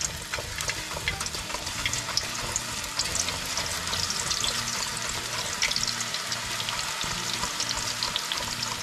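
Raw banana slices deep-frying in hot oil in a kadai: a steady sizzle with dense crackling pops. It grows a little louder about three seconds in as more slices go into the oil.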